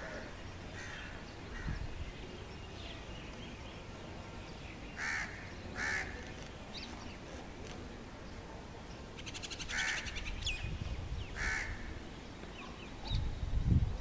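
Four short, harsh caws from a crow-family bird, two close together about five seconds in and two more near ten and eleven seconds, with a few faint high chirps from small birds over steady outdoor background noise.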